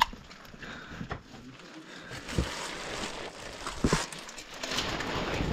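Footsteps and scattered knocks on rocky ground, the two loudest knocks about two and a half and four seconds in, with a hiss that grows louder near the end.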